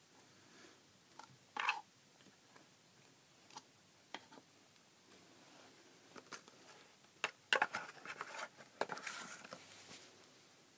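Handling noise from eyepieces being set down on a tabletop: a few light clicks and knocks, then a denser run of clatter and rustling near the end.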